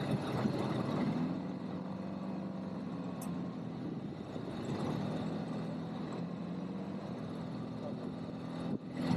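ATV engine running at a steady speed, with a steady hum.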